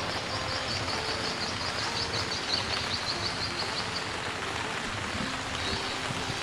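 Steady outdoor background noise with a bird's rapid, high, repeated chirps through the first four seconds or so.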